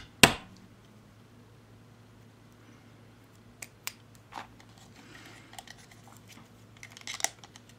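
Hands handling small plastic cosmetic items: a sharp knock just after the start, then scattered light clicks, a brief soft rustle and a few more clicks near the end, over a faint steady low hum.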